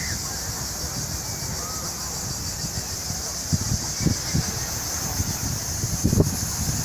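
Steady high-pitched buzzing of insects, with gusts of wind buffeting the microphone in low thumps now and then, most strongly near the end.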